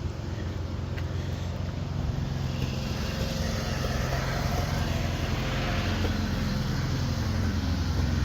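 Riding lawn mower's small engine running steadily, slowly growing louder.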